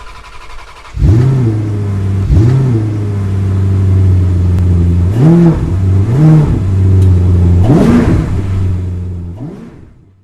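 Vehicle engine idling and blipped five times, its pitch jumping up and falling back with each rev; it starts suddenly and fades out near the end.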